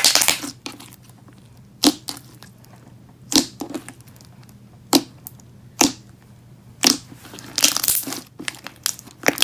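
Thick, glossy slime being pressed and stretched by hand, giving loud, sharp air-bubble pops every second or so and a longer crackly stretch near the end.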